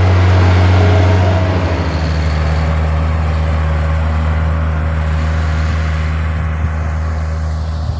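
Engine of a snow-clearing machine running steadily with a low drone, loudest in the first second or two and then easing off a little.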